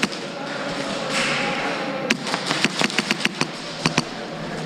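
Airsoft gunfire: a quick string of sharp shots from about two seconds in, over a steady background hiss.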